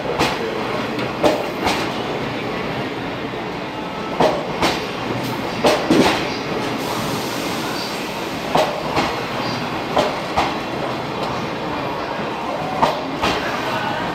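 Blue sleeper-train passenger coaches rolling slowly out of the station: a steady rumble, with wheels clacking over the rail joints, mostly in quick pairs as each car's bogie passes.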